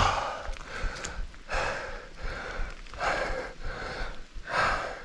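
A mountain biker breathing hard and out of breath after a rough downhill run, with a heavy, noisy breath roughly every second or so.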